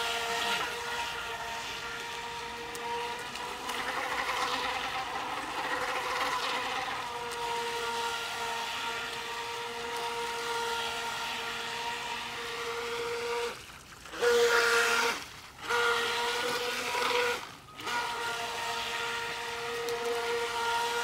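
Brushless 380 electric motor of an RC jet ski boat whining at a steady pitch while running. The whine cuts out briefly three times in the last third, each time coming straight back.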